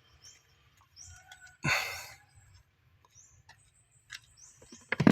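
Faint, short high bird chirps, with one brief loud rustling burst about a second and a half in and a few sharp clicks near the end.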